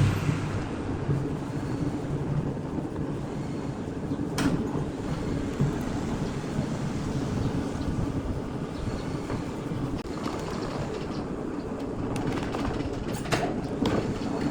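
Machinery running steadily with a low rumble, with a few sharp knocks about four seconds in and several near the end.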